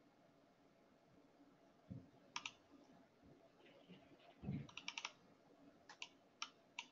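Scattered sharp clicks of computer keys over near silence: a single click about two and a half seconds in, a quick run of about five around five seconds in, and a few single clicks near the end. A couple of soft low thumps come in among them.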